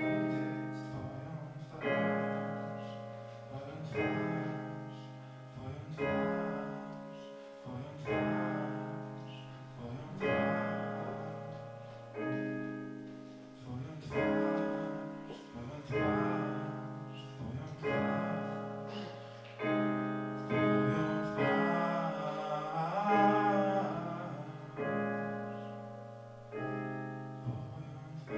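Piano chords played on a Kurzweil stage keyboard, one struck about every two seconds and left to fade. A voice sings a few wavering notes over the chords about three quarters of the way through.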